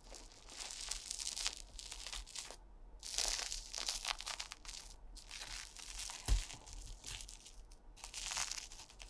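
Close-miked crackling and tearing of an airy soufflé omelette as chopsticks press into it and pull a piece away from it, in four stretches with short pauses between them. A single light knock comes about six seconds in.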